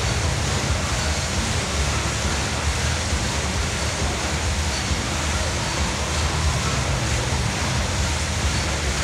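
Air bike's fan spinning fast under hard pedalling and arm pushing, a steady rushing whoosh of air.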